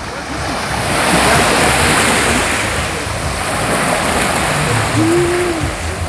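Small sea waves washing onto a sandy shore: a steady rush of surf that swells about a second in. A distant voice calls briefly near the end.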